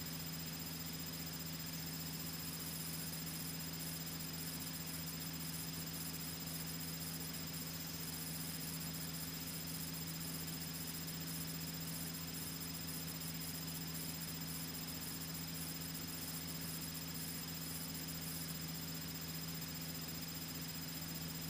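Cessna 152's four-cylinder engine and propeller droning steadily in flight, under an even hiss with a faint high whine.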